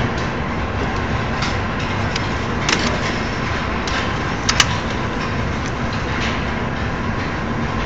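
Steady rushing background noise with a few light clicks from an AR-15 rifle being handled, and a sharper knock right at the end.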